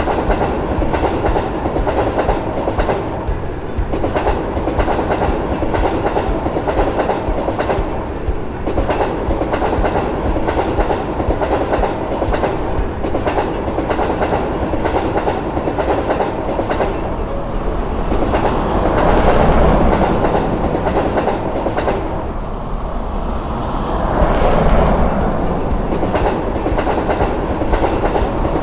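Train passing continuously, its wheels clacking rapidly over the rail joints, growing louder twice in the second half.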